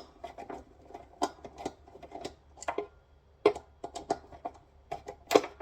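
Irregular metallic clicks, taps and clinks of tools and metal parts being handled while a solar inverter is dismantled, with a few louder knocks.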